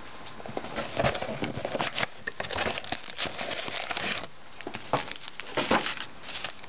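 Plastic wrapping crinkling and crackling in the hands as a sealed box of trading cards and its packs are unwrapped and handled. The crackling is irregular, with louder crackles about a second in and again near the end.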